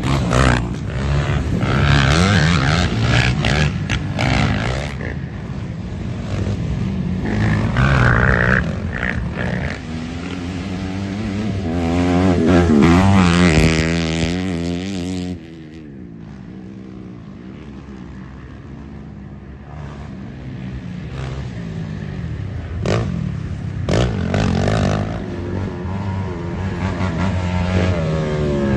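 Racing ATV engines revving hard as quads pass, the pitch rising and falling as riders accelerate and shift. About halfway through the sound cuts abruptly to a quieter stretch, then engine noise builds again.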